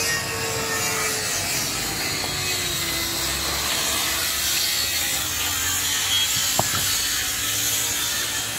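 Stiff plastic sheet scraping and rustling as it is handled and laid over bricks. A faint steady hum sits behind it, and there is one sharp click about two-thirds of the way through.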